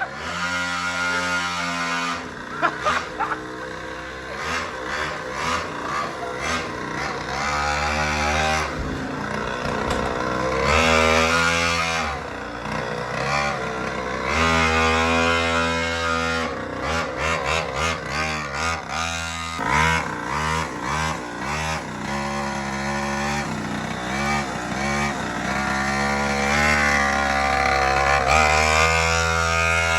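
Pocket bike's small engine revving hard during a burnout, its pitch climbing and falling again and again.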